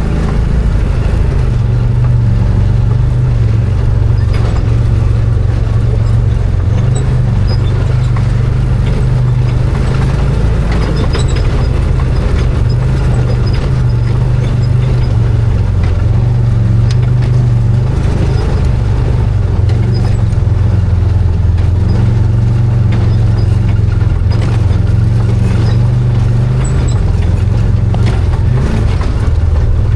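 Arctic Cat Wildcat 1000 4X side-by-side's V-twin engine running steadily under way at an even throttle, with scattered knocks and rattles throughout.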